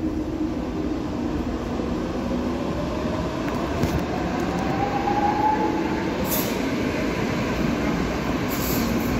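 DSW21 Stadtbahn light-rail car running through the underground station, with a steady rumble of wheels on rail. Its motor whine rises in pitch as it gathers speed, peaking a little past the middle.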